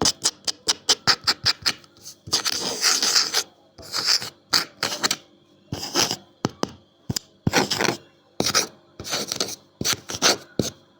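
Quick tapping on wood, about six taps a second, then scratching and rubbing strokes across a wooden surface, broken up by single taps.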